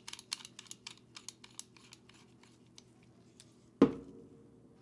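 Light, rapid clicking, about five a second, as the air cap retaining collar of a spray gun is screwed down by hand; it fades out under two seconds in. A single sharp knock with a short ring comes near the end.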